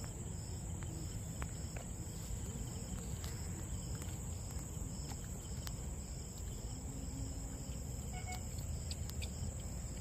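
Insects chirring in a steady high-pitched drone, with a second insect pulsing about twice a second, over a low outdoor rumble and a few faint clicks.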